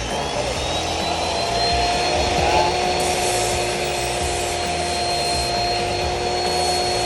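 A motor running steadily with a whine over a rushing noise, its pitch climbing slightly in the first second or two and then holding.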